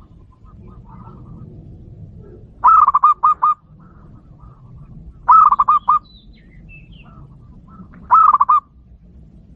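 Zebra dove (perkutut) cooing three times, each phrase a quick run of four or five clear notes lasting under a second, about two and a half seconds apart. It is a decoy bird's call, used to lure wild zebra doves.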